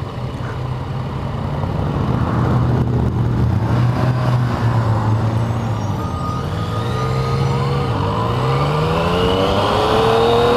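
Motorcycle engine under way at a steady cruise over a rush of wind and road noise, then climbing in pitch over the last few seconds as the bike accelerates.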